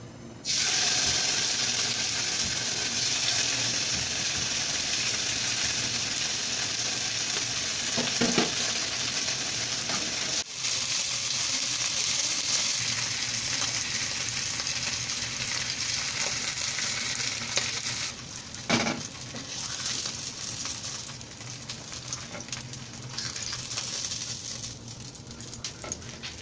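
Flour-dusted salmon steaks sizzling in hot oil in a nonstick wok. The sizzle starts suddenly as the fish goes in about half a second in, runs steadily and eases off somewhat in the last third, with two sharp knocks along the way.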